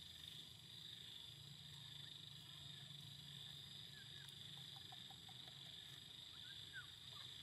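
Faint steady chorus of insects: a high, even drone, with a few short chirps about four seconds in and again near the end.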